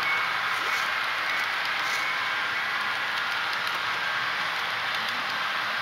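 HO scale model intermodal train cars rolling steadily along the track, a continuous rushing noise with a couple of faint clicks.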